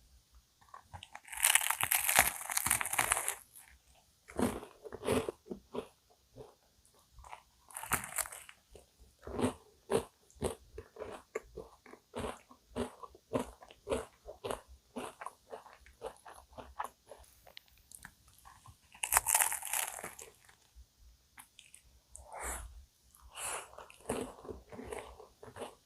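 Crunchy bites into a cookie-topped cream puff (cookie choux), its crisp cookie crust crackling loudly about a second and a half in, again near eight seconds and near twenty seconds, with close-miked chewing in between.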